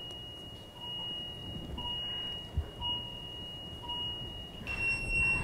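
Hospital medical-equipment alarms beeping: a high steady alarm tone with a fainter, lower beep repeating about once a second. Near the end a second, harsher alarm starts, sounding in beeps of roughly a second each.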